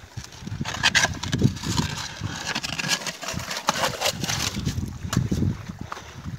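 A perforated metal sand scoop on a long handle digging into wet gravel in a water-filled rock hole, with stones clicking and scraping against the metal and rock, and water sloshing and draining out of the scoop.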